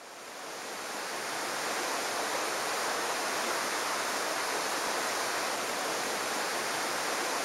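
Rushing mountain stream: a steady hiss of white water tumbling over rocks, fading in over the first second or so.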